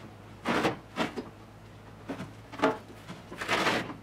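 Short clunks and knocks of loose parts handled against the bare sheet-metal floor and panels of a stripped car body shell, three quick ones and then a longer scrape near the end.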